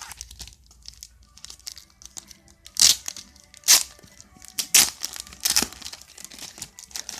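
Plastic wrapping around a papercraft puzzle sheet crinkling and crackling as it is handled, with four louder crackles between about three and six seconds in.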